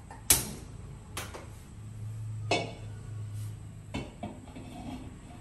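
Metal clanks and knocks as a wide metal frying pan (uruli) and the gas burner's parts are set on the stove, the loudest knock about a third of a second in, followed by several lighter knocks and clinks.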